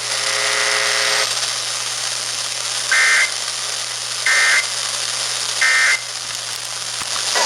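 Emergency Alert System end-of-message signal: three short, identical electronic data bursts about a second apart, heard over steady radio hiss. A buzzy electronic tone comes just before them and stops about a second in.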